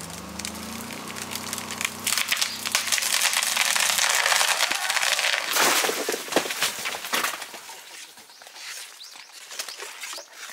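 Snapping and crackling of branches and foliage, a dense run of sharp cracks that builds about two seconds in and dies away after about seven, after a faint engine note falling away at the start.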